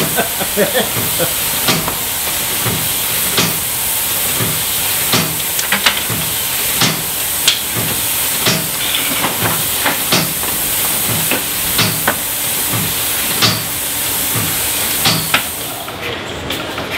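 Steam hissing steadily from a valve on top of a coal-fired Cornish boiler, broken by sharp metal knocks and clanks at irregular intervals as the fire is worked. The hiss drops away near the end.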